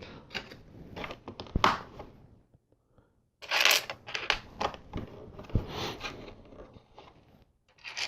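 Loose plastic LEGO pieces clicking and clattering as hands sort through them, with rustling bursts and a short pause about halfway.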